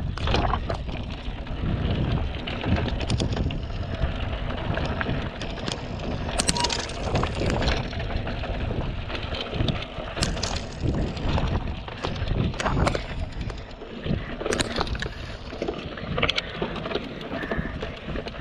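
Mountain bike rolling over a rocky dirt trail: tyres crunching on grit and the bike rattling, with frequent sharp knocks as it bumps over rocks, over a low rumble of wind on the microphone.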